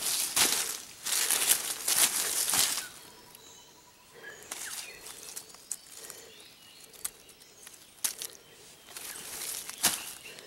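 Wild junglefowl flapping and struggling against dry leaf litter while held by hand: a few loud flurries of wingbeats and rustling in the first three seconds, then scattered rustles and twig snaps, and another flurry near the end.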